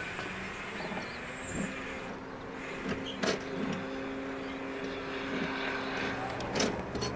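Distant engine drone, steady with a lower hum coming in near the end, and a few sharp clicks.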